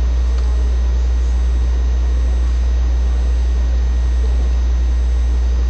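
Loud, steady low hum with a faint hiss above it: the recording's own noise, which drowns out everything else.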